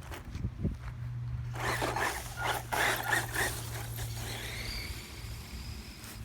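FTX Viper RC car driving off-road: about a second and a half in, a couple of seconds of rough, raspy scrabbling and whirring, then a thin high motor whine that rises and fades.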